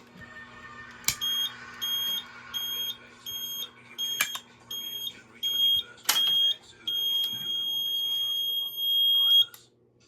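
Electronic fire alarm horn sounding a high-pitched tone, pulsing about twice a second, then held steady for a couple of seconds before cutting off suddenly. A few sharp clicks sound among the pulses.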